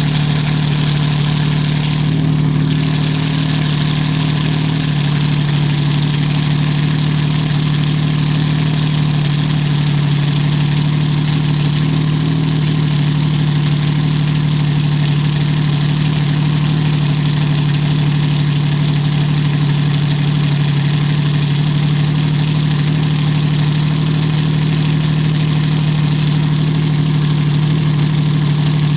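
Lamborghini Miura SVR's V12 engine idling steadily and loudly, with an even, unchanging pitch.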